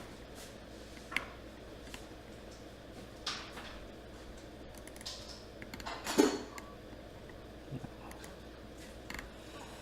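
Scattered computer mouse clicks and small desk knocks over a steady low hum, with one louder knock about six seconds in.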